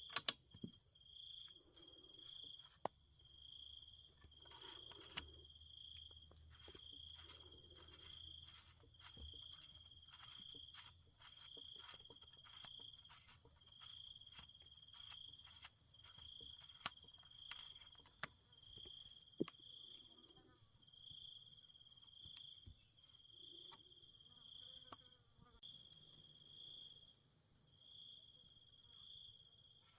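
Faint insects chirping: a steady high buzz with a shorter chirp repeating about once a second. A few sharp clicks and taps stand out over it, the loudest just after the start.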